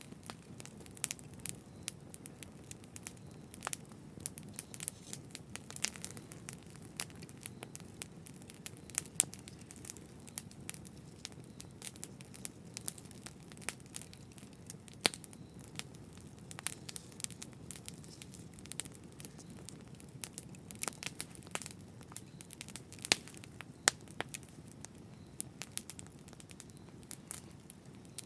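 Campfire burning, with a low steady rumble of flames and frequent irregular sharp crackles and pops of burning wood.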